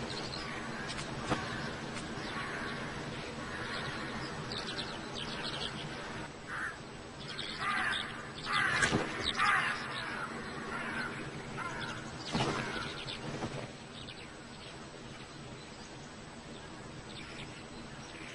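Wild birds calling over a steady outdoor background. A cluster of louder, harsh calls comes about halfway through, and another a few seconds later.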